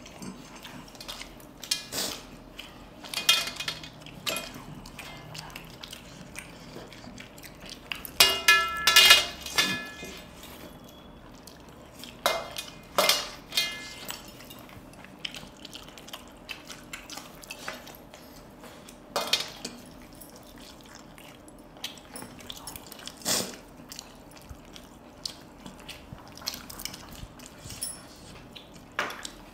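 Hands eating from stainless-steel plates: fingers and metal rings scraping and tapping on the steel, with scattered clinks and a brief ringing tone about eight seconds in.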